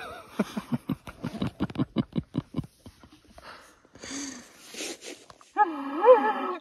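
Elk call blown through a bugle tube by a hunter: a short pitched call at the start, a run of quick rhythmic pulses, about five a second, then a wavering call near the end. These are amateur elk bugling attempts.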